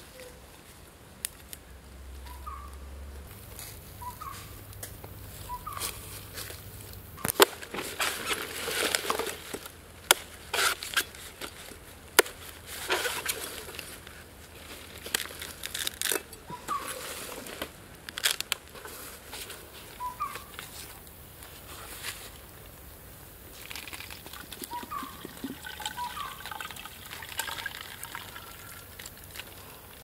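A long knife chopping into a green coconut, sharp strikes in clusters with splashy hiss between them. Short rising bird chirps come now and then.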